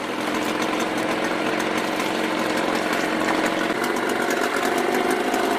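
Small outboard motor on a motor boat running steadily.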